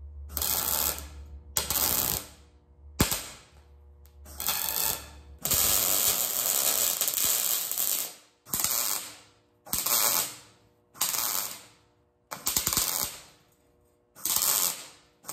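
MIG welding arc crackling on steel in a series of short tack welds, about ten bursts under a second each, with one longer bead of about two and a half seconds in the middle.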